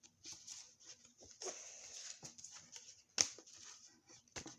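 Pokemon trading cards being handled and slid against one another: a run of soft, irregular rustles and scrapes, with one sharp click about three seconds in.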